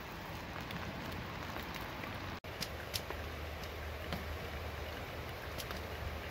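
Steady patter of light rain with scattered drip ticks, cut off for an instant about two and a half seconds in.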